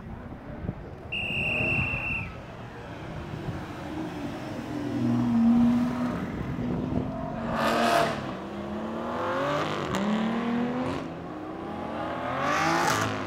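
Aston Martin sports cars accelerating hard past one after another, their engines revving up with a rising pitch that breaks at each gear change and swelling loudest as each car goes by. A short, steady high-pitched tone sounds about a second in.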